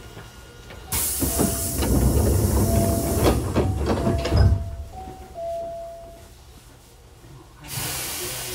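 Hankyu 8000 series electric train standing at the platform: a sudden burst of compressed-air hiss with rumbling and a quick run of clattering knocks, dying away after about three and a half seconds. A second burst of air hiss starts near the end.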